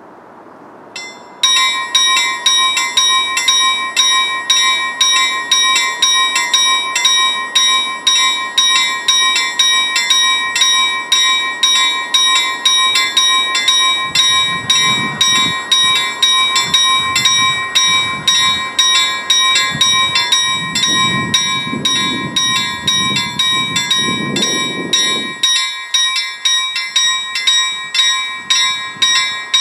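Railway level-crossing warning bell that starts abruptly about a second and a half in and rings in a fast, even series of strikes, the signal that a train is approaching the crossing. A low rumble rises and fades in the middle of the ringing.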